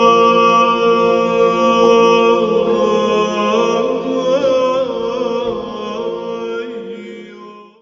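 Byzantine chant: sung voices hold a long melismatic vowel over a steady lower note, with ornamented turns in the middle. The singing fades out near the end.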